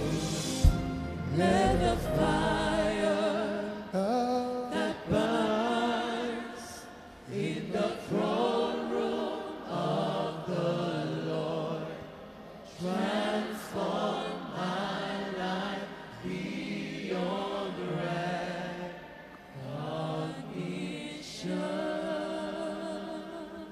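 Slow worship singing: long held notes with vibrato, sung in phrases of a few seconds with short breaks between them.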